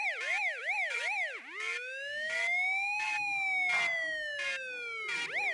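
Siren sound effect in quick up-and-down yelp sweeps, about two and a half a second. About one and a half seconds in it changes to one slow rise and fall, then returns to quick sweeps near the end, with a few sharp clicks along the way.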